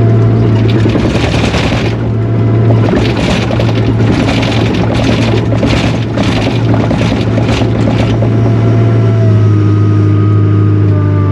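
Takeuchi TL240 track loader's diesel engine running loud and steady, with rough clattering and scraping from the machine working from about a second in until about eight seconds in. A steady high whine joins in near the end.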